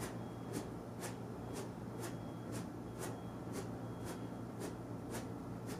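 Fingers snapping in a steady rhythm, about two faint snaps a second.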